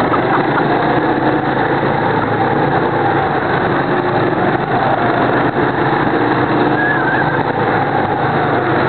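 Go-kart engines running at racing speed, heard from on board a kart. Several engines overlap in a steady, loud drone whose pitch drifts up and down.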